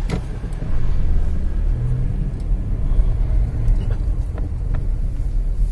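A car's engine and tyres giving a steady low rumble, heard from inside the cabin while driving along a city street, with a few faint clicks.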